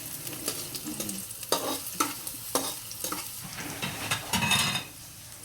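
Garlic and onion sizzling in hot oil in a frying pan while a spatula stirs them, with sharp scrapes and taps of the spatula on the pan about once or twice a second and a longer, louder scrape near the end.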